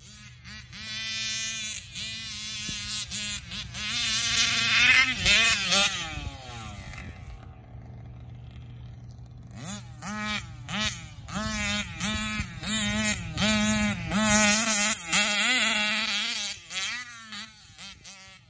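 Large-scale RC car's RCMax gasoline two-stroke engine buzzing as it is driven, revving up and down over and over. The pitch falls away about six seconds in and drops quieter for a few seconds, then comes back in quick repeated revs, about one a second.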